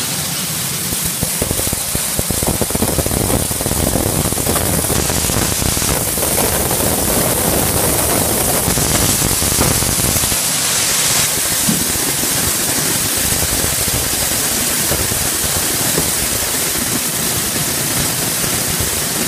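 Bean colour sorter running with red beans pouring through it: a loud, steady hiss with a dense, fine rattle of beans streaming out of the discharge chutes.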